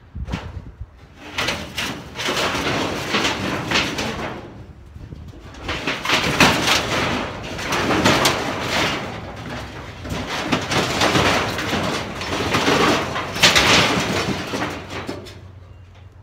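Thin sheet-steel shed panels scraping, clattering and crumpling as they are wrenched and bent by hand, in three long bouts with short pauses between.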